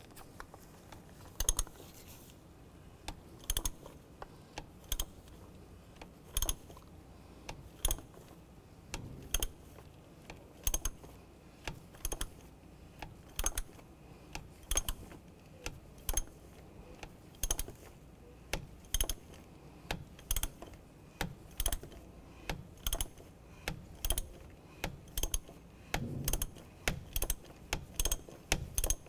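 Ratchet clicking on its return strokes as a 24 mm socket unscrews the oil filter housing cap, a short burst of clicks about every second.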